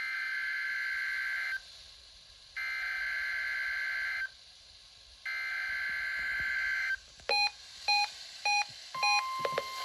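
NOAA Weather Radio SAME header: three bursts of digital data tones, each about a second and a half long with a gap of about a second between them, sent for the Required Weekly Test. Then come four short electronic beeps, and near the end the steady 1050 Hz warning alarm tone begins.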